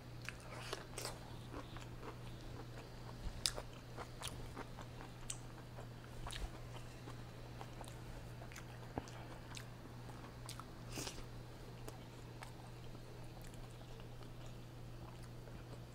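Close-miked biting and chewing of a pickle spear and crisp french fries, with scattered short crunches a few seconds apart over a steady low hum.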